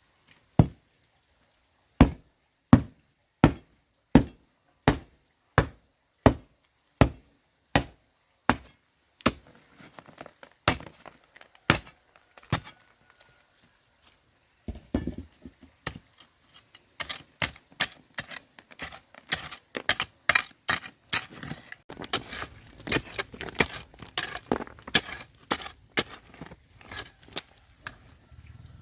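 Chopping with a blade on a wooden board. It begins as single strokes a little under a second apart, then after a short pause turns into a faster, denser run of chopping.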